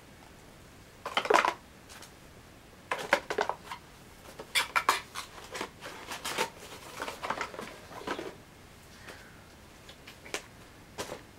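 Rustling and light clicks and knocks of mail and packaging being handled and sorted on a table, in irregular bursts with short pauses between.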